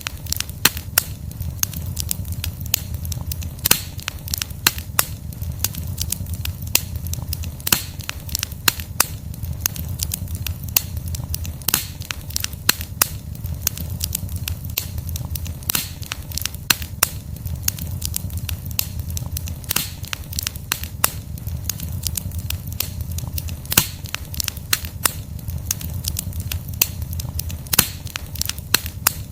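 Wood fire crackling, with many sharp pops and snaps of burning logs, several a second, over a steady low rumble of the flames.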